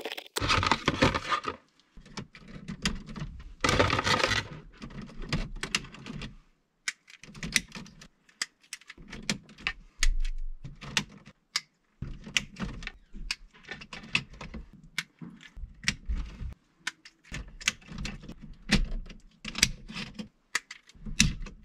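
Plastic clamp-on current sensors (Emporia 50 A) snapping shut around breaker wires, with their cables being handled: a long irregular run of small sharp plastic clicks. There are two louder rustling bursts, one at the start and one about four seconds in.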